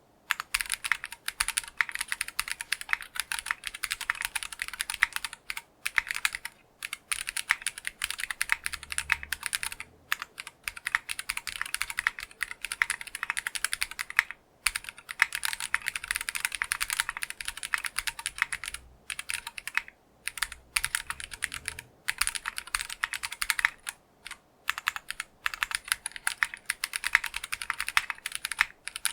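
Fast continuous typing on a custom 60% mechanical keyboard with factory-lubed Geonworks Clear switches, an aluminium plate and PBT keycaps: rapid, even key clacks in runs broken by brief pauses between words and phrases. Now and then a deeper stroke is heard from the spacebar, which has a Cherry MX Hyperglide Black switch.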